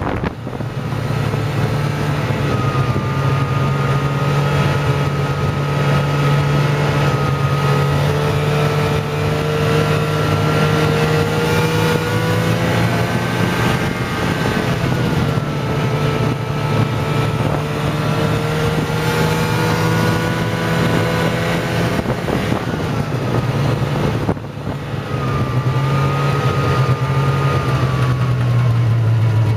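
Snowmobile engine running at steady trail speed, heard from on board the machine, its pitch drifting slowly up and down. Near the end the throttle is eased off for a moment and then opened again.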